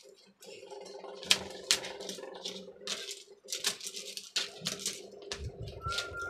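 Irregular light clicks and rattles of LED backlight strips and wire being handled against a TV's metal back frame, over a steady hum.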